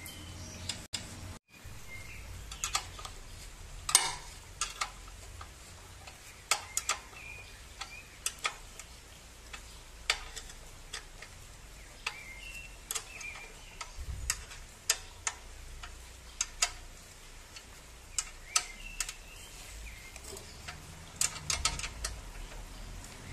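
A spanner clicking and knocking on metal bolts and brackets as the tiller's handlebar bracket bolts are tightened, in irregular sharp taps, some ringing briefly.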